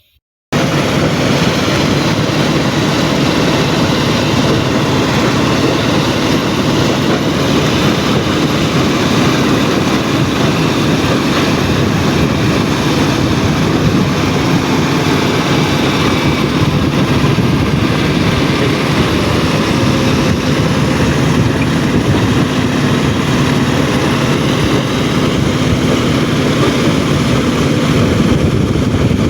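Stone-crushing plant and heavy machinery running, a loud, steady mechanical din.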